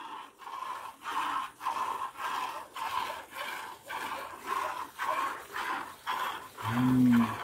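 A cow being milked by hand: short hissing squirts of milk hit a plastic bucket in a steady rhythm, about two a second. Near the end a brief low hum is the loudest sound.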